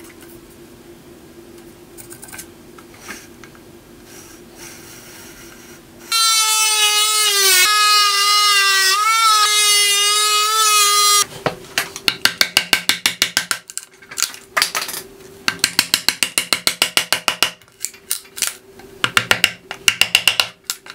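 An oscillating multi-tool cutting into a hemlock beam: a loud, steady whine that starts about six seconds in, wavers slightly under load and stops abruptly about five seconds later. After it, a long run of quick, sharp knocks as a chisel chops out the recess.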